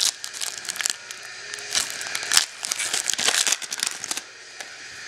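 Foil wrapper of a Topps Chrome baseball card pack crinkling and crackling irregularly as it is handled and opened. It quiets down about four seconds in.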